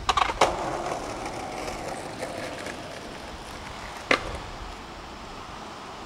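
Skateboard clattering on a concrete floor: two sharp clacks at the start, a short rattle of wheels rolling, then one more sharp clack about four seconds in.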